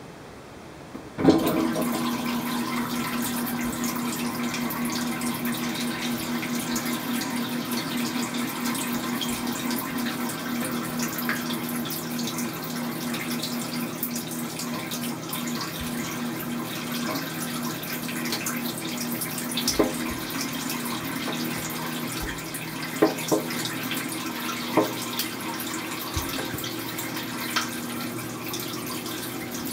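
KitchenAid dishwasher running its wash cycle: the circulation pump starts about a second in with a steady hum, and water sprays from the lower spray arm against the tub and racks, with a few clicks and knocks later on. The upper spray arm is not working.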